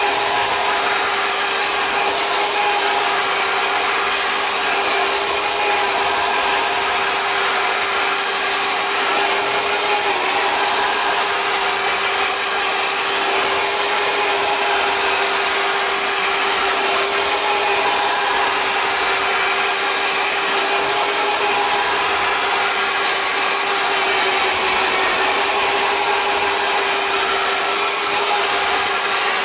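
Electric drain snake's motor running steadily with a constant whine while its cable turns inside the kitchen sink drain line. The pitch dips briefly twice, about ten seconds in and again near the end.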